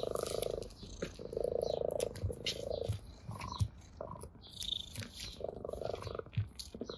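Orange tabby cat purring close to the microphone in several short bouts with pauses between them. Light clicks and crackles come from the dry blade of grass as the cat paws and bites it.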